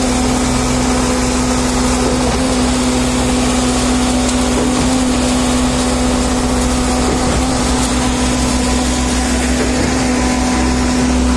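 Diesel engines of a self-loading concrete mixer and a diesel concrete trailer pump running steadily at a constant pitch while concrete is being transferred.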